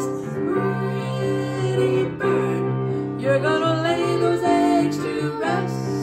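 Female voice singing a children's song, accompanied by an electronic keyboard playing sustained notes.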